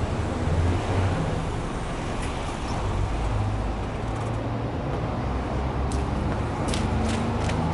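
Subaru Legacy B4 2.0i's flat-four boxer engine idling steadily, heard at the exhaust tailpipe as a low, even hum. A few light clicks, likely footsteps, come near the end.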